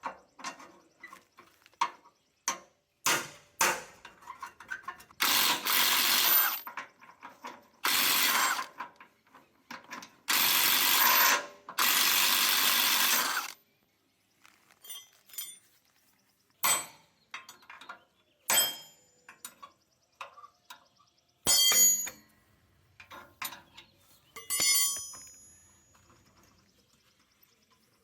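Three loud bursts from a power tool, the longest about three seconds, among knocks and clicks of hand tools on metal. Near the end come a few sharp clinks of metal parts that ring briefly.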